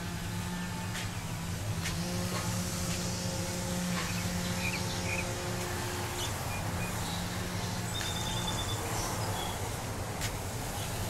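A steady low engine drone with a few held tones that shift every couple of seconds, with a few brief bird chirps and a short trill near the end, and a few light clicks.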